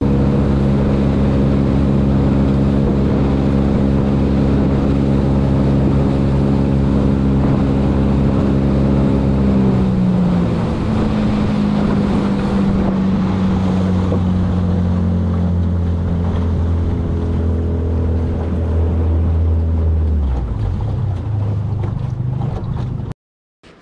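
Outboard motor driving a small aluminium boat at speed, with water rushing along the hull and wind on the microphone. The engine note changes about ten seconds in and again near the end, then the sound cuts off abruptly.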